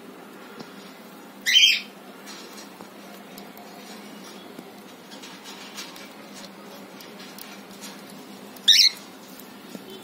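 Cockatiel giving two short, loud calls, one about a second and a half in and the other near the end.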